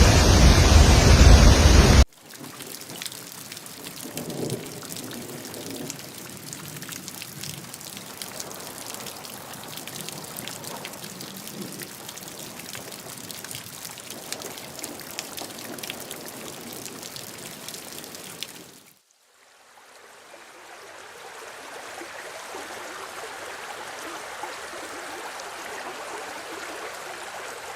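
A loud, even rushing noise for about two seconds that cuts off abruptly, then rain falling with many small drop ticks. About three quarters of the way through it fades briefly and gives way to the steady sound of flowing water.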